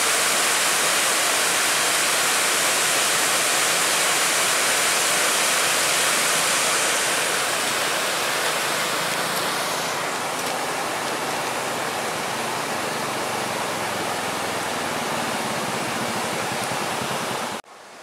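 Steady rush of river water spilling over a concrete dam weir, a little softer after about eight seconds, then cut off abruptly near the end.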